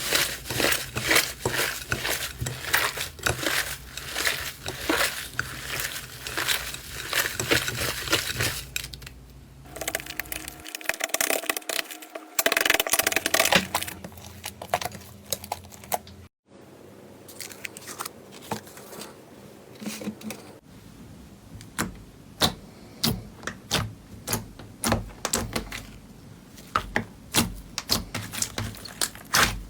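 Slime being squished and pressed, with a rapid run of small crackling pops and clicks. The texture changes abruptly a few times, with a brief silent gap about halfway through.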